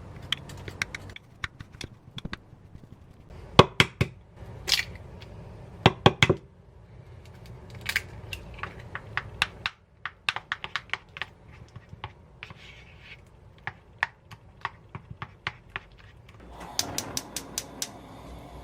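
A kitchen utensil clinking and tapping against a bowl in irregular sharp clicks while banana pancake batter is mixed, with a faster run of ticks about two-thirds of the way through and a brief rush of hiss near the end.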